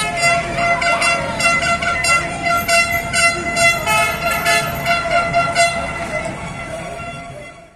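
Horns blaring in a steady held tone over protest-crowd noise, with a quick run of sharp knocks, fading out near the end.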